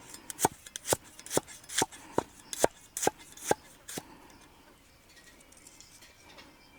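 Knife chopping food on a board in a steady rhythm of about two strokes a second, around ten strokes, stopping about four seconds in.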